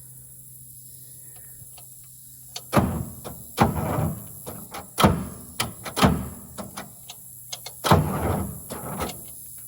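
A low steady hum, then from about three seconds in a series of irregular knocks and bangs, several loud, each ringing briefly.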